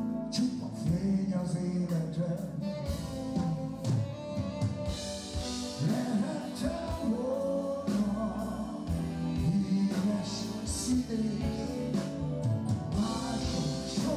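Live band playing a song with a male lead singer.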